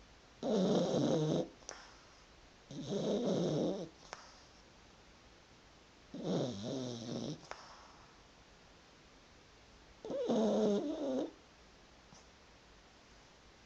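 A dog snoring, four long snores about every three to four seconds.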